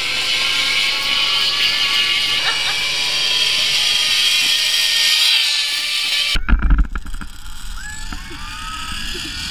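Zip line trolley pulleys running along the steel cable as a rider zips through: a steady whirring hiss with a whine that rises slowly in pitch. About six seconds in the sound jumps to right at the trolley, with heavy wind rumble on the microphone and the pulley whine rising again near the end.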